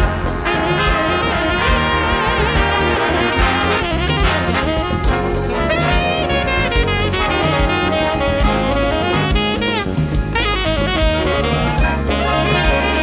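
Big band playing jazz fusion live: a tenor saxophone solos over drums and bass with the brass section playing behind it. Near the end the trumpets and trombones come to the fore.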